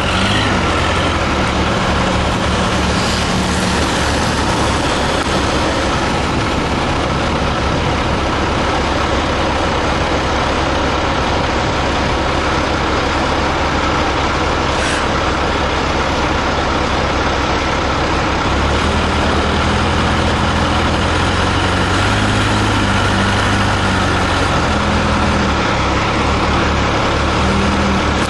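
Telehandler forklift's engine running steadily as the machine climbs slowly up a trailer's loading ramp, its note shifting about two-thirds of the way through, with one short clank near the middle.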